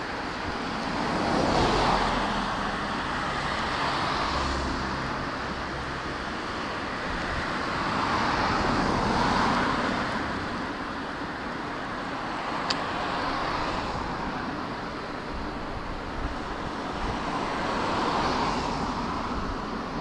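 Outdoor vehicle and traffic noise that swells and fades three times over a low steady hum, with a couple of faint clicks.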